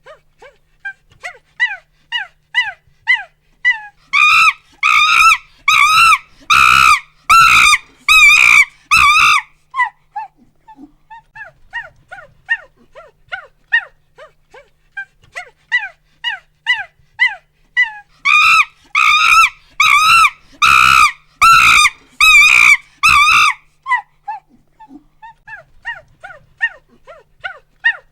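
Chimpanzee pant-hoots, twice: a run of short hoots quickens and rises into a string of loud screams, then drops back to short hoots.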